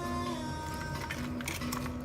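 Background music: a slow pop ballad with a female voice singing a line in Korean over soft held notes.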